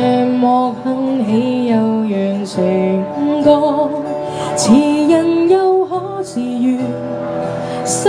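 A woman singing a Cantopop song live into a microphone, accompanying herself on acoustic guitar.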